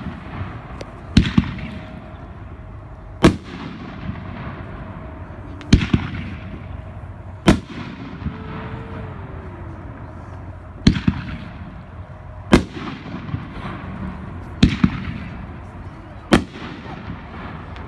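A 500 gram consumer fireworks cake (Pyro Candy) firing, with about eight loud shell-burst reports spaced roughly two seconds apart, each trailing off.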